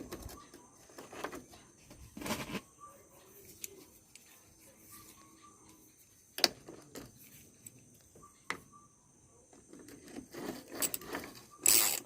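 Scattered light metallic clicks and knocks of hand tools and car door lock parts being handled, with a louder cluster of knocks near the end.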